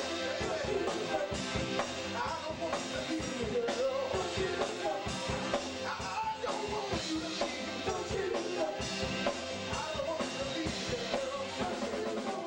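Live band performing: a male lead singer singing into a microphone over a drum kit and the rest of the band.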